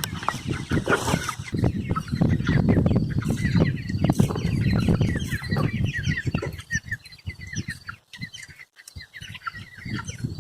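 A flock of Cornish Cross meat chicks peeping, many short high calls overlapping, over a low rumbling noise that fades out about six seconds in.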